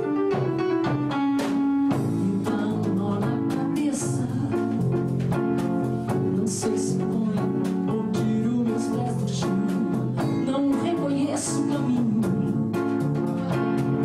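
A trio playing live: keyboard, double bass and drum kit.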